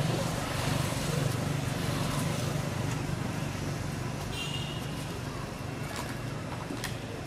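A steady low mechanical drone under constant outdoor background noise. A brief high squeak comes about four and a half seconds in, with a few faint clicks near the end.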